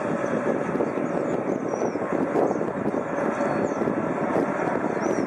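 Distant jet airliner engines running on the ground: an even rushing noise with a constant hum. Faint bird chirps sound above it.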